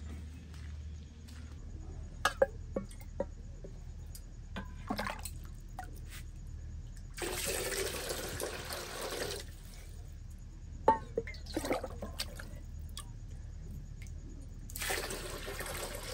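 Water poured from an aluminium jug into a metal basin already holding water, in two pours: one about seven seconds in lasting two seconds, another starting near the end. Sharp clinks and knocks come before and between the pours.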